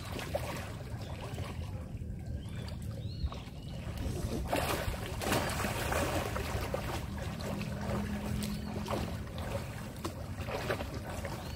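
Water splashing as people swim, with louder stretches of splashing from about halfway in, over a steady low rumble.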